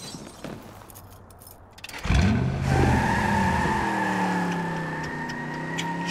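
A car engine sound comes in suddenly about two seconds in, then runs on as a steady note whose pitch slowly falls, with a few light clicks over it.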